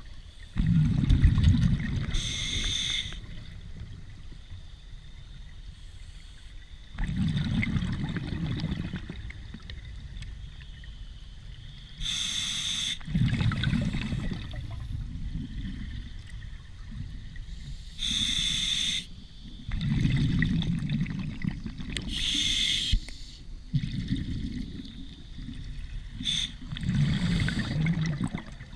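Scuba diver breathing underwater through an open-circuit regulator: a short hiss on each inhale, then a low bubbling rumble as the exhaled air leaves, repeating about five times every few seconds.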